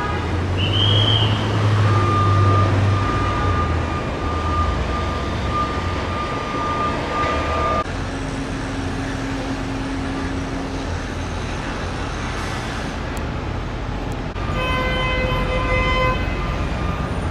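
Road traffic at an airport terminal roadway: vehicle engines and tyre noise running steadily, with a vehicle horn sounding for about two seconds near the end.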